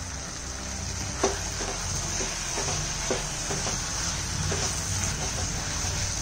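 Wooden spatula stirring and scraping soya chunks, green peas and tomato masala in a coated pan over a steady sizzle of frying. The strokes come about every second, with sharper scrapes about a second in and again about three seconds in.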